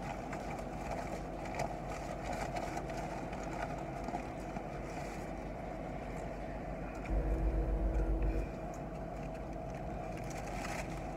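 Steady hum of an idling car heard inside its cabin, with faint crinkling of fast-food paper wrappers. A deeper rumble swells for about a second and a half partway through, then falls back to the steady hum.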